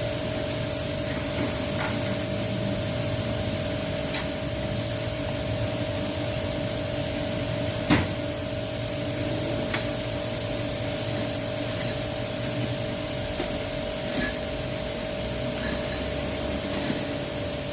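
Steady hiss with a constant hum, and scattered light clicks and taps from brake parts being handled; the sharpest tap comes about eight seconds in.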